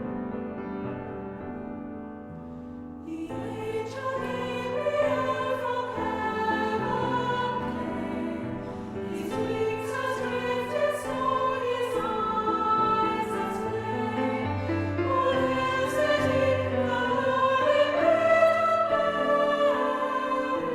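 Choir singing with accompaniment in a slow classical style. It comes in fuller about three seconds in, after a softer opening.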